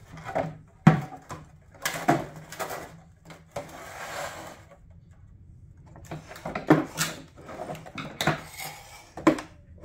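Hard plastic knocks and clicks as the lens of a Mazda 6 xenon headlight is worked loose and pulled off its housing, the sealant softened by heat. A short scraping rasp comes about three and a half seconds in.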